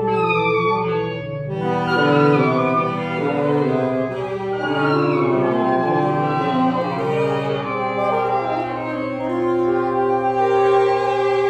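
Free-improvised jazz for clarinet, alto saxophones and tenor saxophones, several reed lines held and sliding over one another at once, with a rising squealing line near the start.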